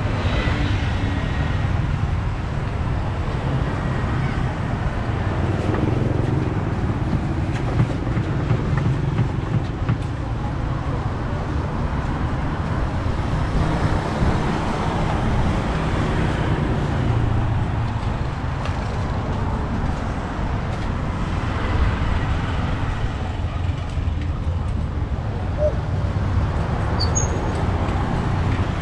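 Steady city street traffic noise, with passing vehicle engines.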